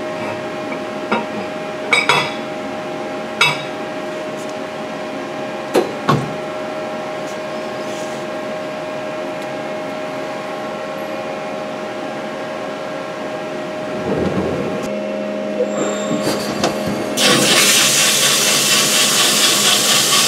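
CNC lathe humming steadily, with a few sharp metal clinks in the first six seconds as a steel ring is handled against the steel tube in the chuck. About fifteen seconds in the spindle starts turning, and near the end a loud, steady hiss of coolant spray takes over as the tool cuts the steel DOM-tube hoist drum.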